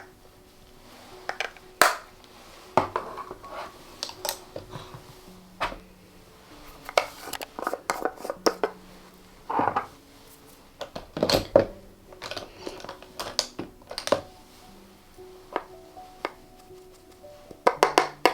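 Sharp irregular clicks, taps and knocks of plastic makeup containers being handled, opened, closed and set down on a hard surface, over quiet background music. The loudest knocks come about two seconds in, around eleven seconds in, and again near the end.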